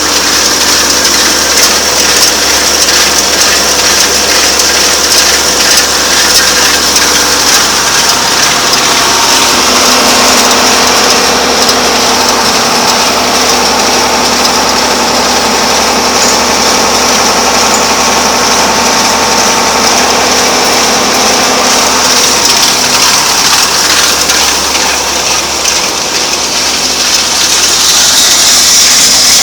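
Vermeer 504C round baler running empty off a Ford 7810 tractor's 540 PTO, belts, rollers and chains turning steadily over the tractor's diesel engine. A little chattery: a loose drive chain slipping a little bit.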